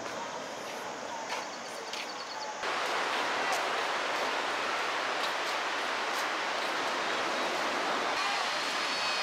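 Steady hiss of sea surf washing onto a sandy beach, stepping up louder about two and a half seconds in.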